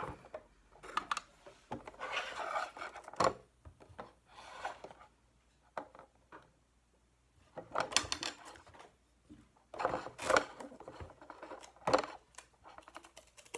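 Duct tape being pulled off the roll and pressed down around a chopstick on a plastic jug, in a series of short scratchy rips and rubs, with a quieter pause a little past the middle.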